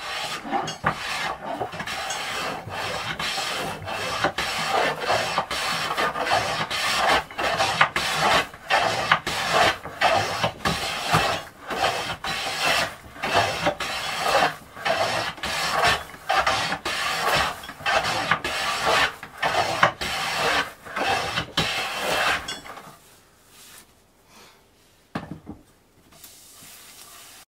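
Hand plane taking shavings along the edge of a board held in a vise: a quick, even run of rasping strokes, about one and a half a second, that stops abruptly near the end. A single knock follows.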